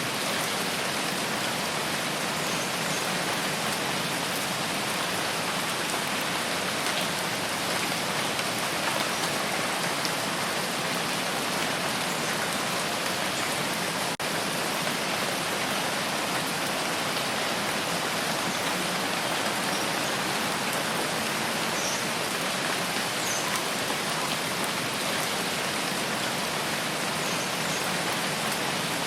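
Steady rain falling, an even hiss that does not let up, with a momentary drop-out about halfway through.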